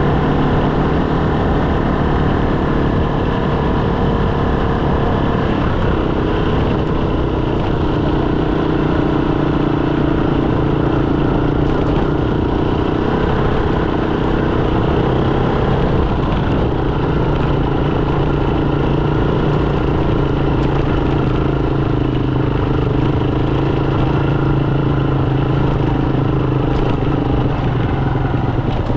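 Motorcycle engine running steadily while riding, its pitch shifting about six seconds in and again around sixteen seconds.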